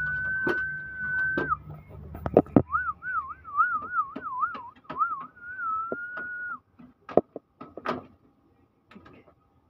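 A person whistling a tune: one long held note, then a quick wavering warble, then another long held note, over scattered clicks and taps.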